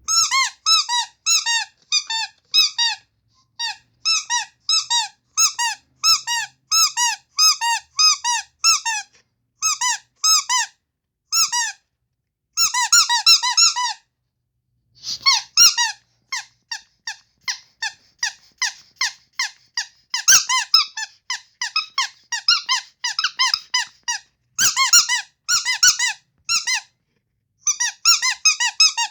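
Rubber carrot squeaky toy squeezed over and over, giving high squeaks at about two to three a second. The squeezing breaks off in a few short pauses, with quicker runs of squeaks around the middle and near the end.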